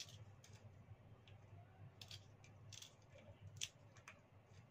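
A kitchen knife cutting spice pieces on a cobek, a flat mortar, giving faint, irregular clicks and taps as the blade meets the mortar.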